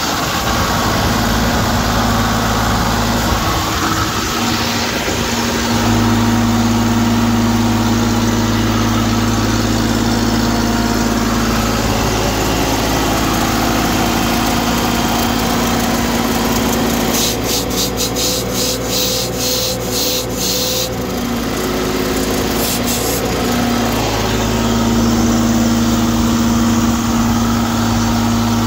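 Kubota WG750 three-cylinder gas engine of a truck-mount carpet-cleaning unit running with a steady hum, which firms up about six seconds in. Midway there is a run of fast, even ticking lasting a few seconds.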